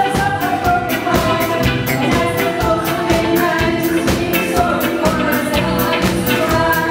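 A live band plays a pop song with a steady drum beat while female vocalists sing.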